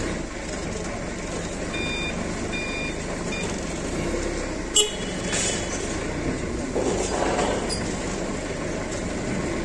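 Forklift engine running steadily under the operator's seat. A few short high beeps come about two seconds in, and a single sharp knock near the middle.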